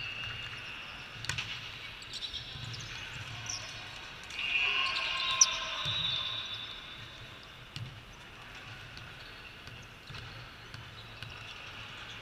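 Volleyballs being hit and bouncing on the court in a large hall: scattered slaps and thuds, with the sharpest smack about five seconds in.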